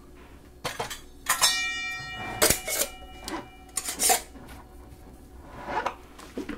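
Glass mason jars with metal screw lids clinking and knocking against each other and the counter as the lids are screwed on to seal them. One knock about a second and a half in leaves a ringing note that lasts over a second.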